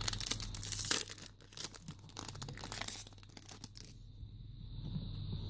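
Foil wrapper of a trading card pack being torn open and crinkled, a dense crackling loudest in the first second that thins into scattered crinkles and dies away about four seconds in.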